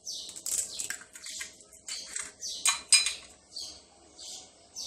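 A utensil clinking and scraping against a mixing bowl in a run of quick, irregular strokes, with two sharper clinks about three seconds in.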